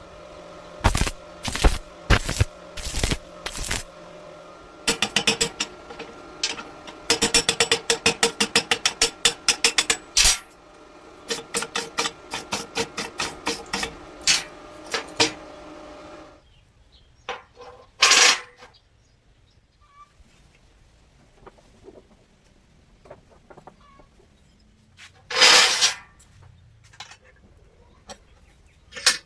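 Electric welding machine humming steadily under a string of sharp metallic taps and clicks, including a quick run of about six taps a second. The hum stops about two-thirds of the way through, leaving a few short noisy bursts.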